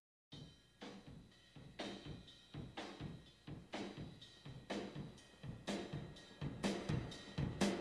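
Background music: a new track starts with a steady drumbeat, about two to three hits a second, that grows louder.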